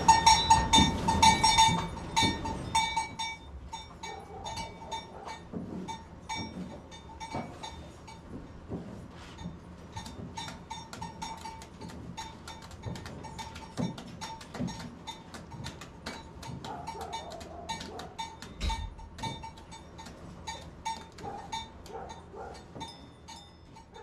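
Holstein dairy cows in a stanchion barn: many small metal clinks and knocks from the stanchions and neck chains as the cows move and eat. The sound is louder in the first couple of seconds and fades out near the end.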